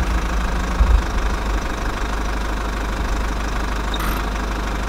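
A vehicle engine running steadily with a low rumble, and a brief louder bump about a second in.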